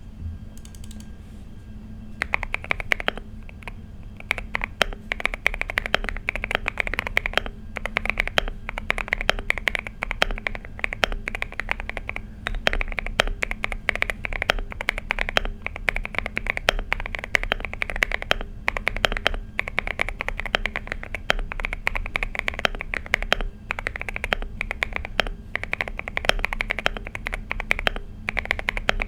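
Fast continuous typing on a Finalkey V65 custom mechanical keyboard with a polycarbonate plate, foam dampening and a tape mod. Dense keystroke clacks start about two seconds in, with brief pauses between bursts, over a low steady hum.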